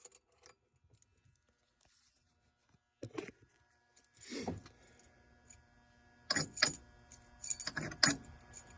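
Metal keys clinking and rattling as they are handled, with a few sharper clinks in the second half over a faint steady hum.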